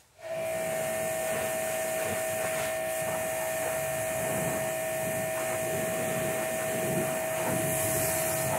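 Pressure washer spraying, starting suddenly just after the beginning: a steady hiss of spray over a constant motor whine.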